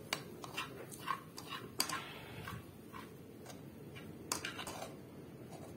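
A metal spoon scraping and clicking against a frying pan while scooping food out of it, in irregular clicks with a quick cluster about four and a half seconds in.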